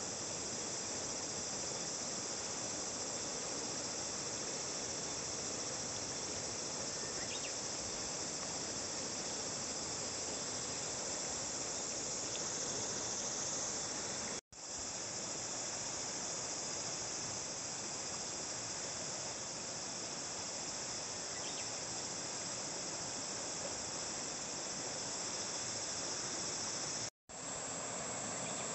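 A steady, high-pitched chorus of summer insects over the rushing of a flowing river. The sound cuts out for an instant twice, about halfway through and near the end.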